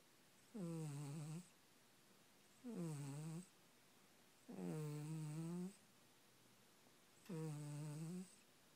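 Domestic cat snoring in its sleep: four pitched snores, each about a second long and about two seconds apart, each dipping in pitch at its start and then holding steady.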